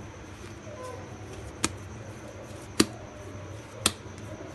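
Hands working a ball of risen pizza dough on a granite counter, with three sharp taps about a second apart.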